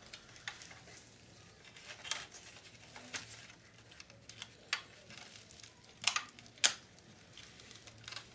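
Scattered small clicks and taps of hands handling and fitting parts into the plastic chassis of a Philips D6350 portable cassette recorder, with the two sharpest clicks about six seconds in.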